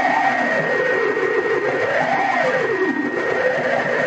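Electronic feedback noise from an experimental sound-and-light installation. A steady high tone sits over a harsh, noisy drone whose pitch slowly wavers up and down, dipping lowest near the end.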